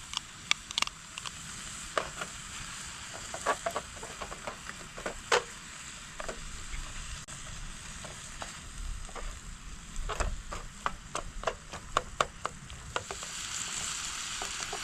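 Hamburger meat sizzling in a frying pan, with repeated sharp clicks and scrapes of a utensil stirring it in the pan. The sizzle grows louder near the end.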